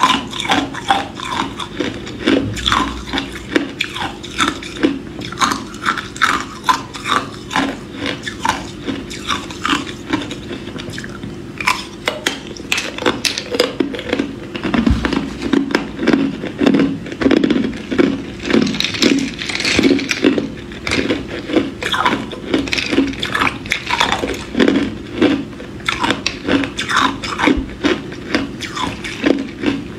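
Hard clear ice cubes being bitten and chewed: a steady run of crisp crunches, about two a second.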